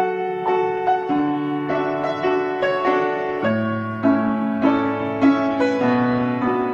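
Piano music: a steady run of struck notes and chords, a new note sounding about every half second.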